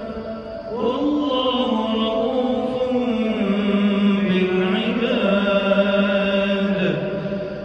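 A man's voice reciting the Quran in the melodic chanted style, echoing. After a short pause, about a second in, he begins one long phrase of drawn-out, sliding notes. The phrase ends on a falling note near the end.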